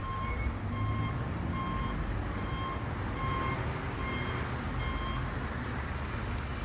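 A large vehicle's reversing alarm beeping at a steady pace, a bit more than one beep a second, stopping about five seconds in, over the low rumble of engines and street traffic.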